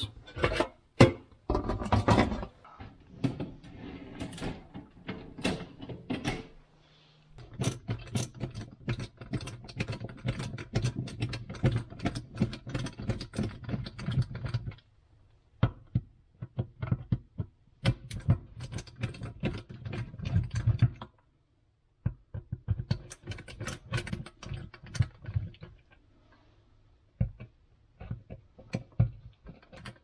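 Hands working on plastic dishwasher parts in a stainless steel tub: the filter being lifted out, then a screwdriver turning the screws of the plastic pump cover in the sump. Dense runs of clicks, knocks and rattles, broken by a few short pauses.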